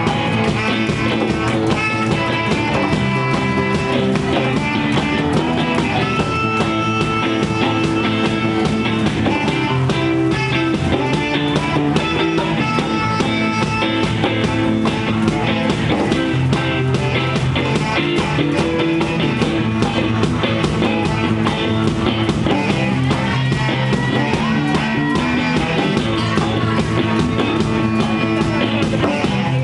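Rock band playing live, a guitar-led instrumental passage with no singing, loud and steady throughout.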